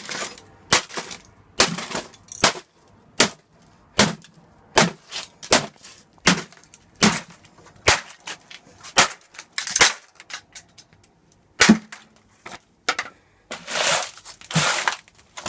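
Repeated sharp knocks on a laptop's casing and parts as it is broken apart, about one blow every 0.8 seconds, giving way near the end to a couple of seconds of rough crunching and scraping.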